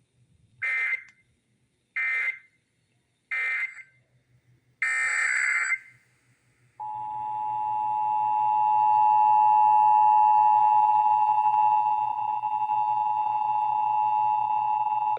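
Emergency Alert System data tones: three short screeching digital bursts, the end-of-message code, then about five seconds in a longer header burst. From about seven seconds in comes the steady two-tone EAS attention signal, held without a break.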